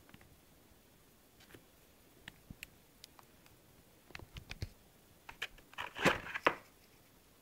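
A prop wand and its presentation box being handled: scattered light taps and clicks, then a louder cluster of knocks and rustling about six seconds in, as a hand takes hold of the wand in the box.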